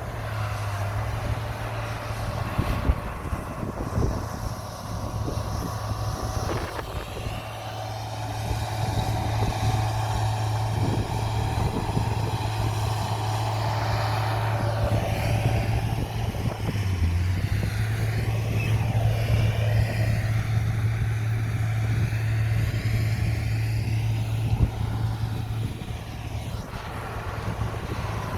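Bulldozer's diesel engine running steadily under load as it pushes soil, a low drone whose pitch rises and falls as it works, with a few knocks.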